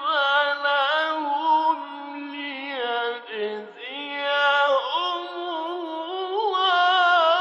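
Male reciter's voice in slow, melodic Quran recitation (tajweed), drawing out long ornamented notes whose pitch slides and wavers. The voice dips briefly a little past halfway, then swells into a long held note near the end.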